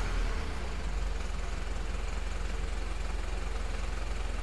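Mitsubishi Fuso truck's 4M50 four-cylinder turbo diesel engine idling steadily, with an even low pulsing from its firing.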